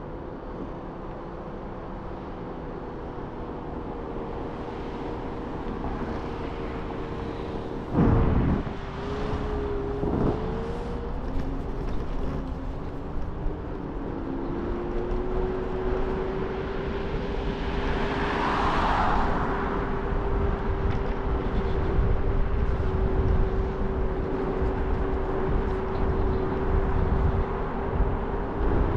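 Scooter in motion: a steady motor whine over wind and road rumble, with two sharp jolts about eight and ten seconds in, when the whine briefly drops in pitch. A short rushing swell comes about two-thirds of the way through.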